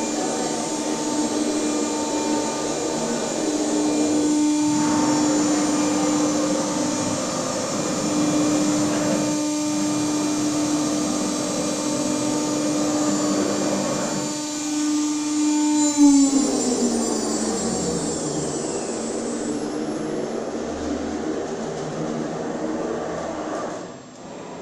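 Motionmaster 5-axis CNC router running, its spindle giving a steady high whine over the hum of the moving axes, with brief dips as the head changes moves. About 16 seconds in the whine falls steadily in pitch as the spindle spins down.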